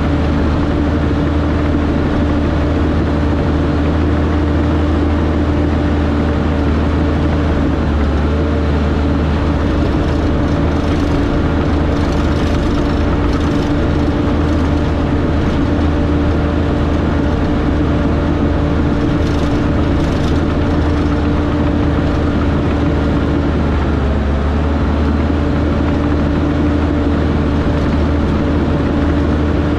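Diesel engine of a piece of heavy earthmoving equipment running steadily and hard, dipping briefly in pitch twice, about eight seconds in and again near the end. Faint high rattling comes and goes in the middle.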